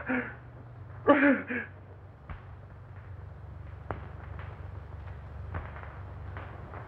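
Steady low hum and hiss of an old film soundtrack, with a few scattered clicks. Two short wordless vocal sounds come in the first second and a half.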